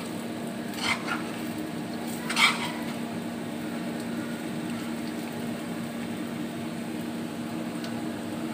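Potato fries deep-frying in hot oil in a karahi: a steady sizzle over a low hum, with two short knocks about one and two and a half seconds in, the second louder.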